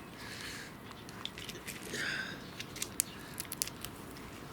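Cat eating, with small sharp chewing and crunching clicks, and one short high-pitched meow about two seconds in.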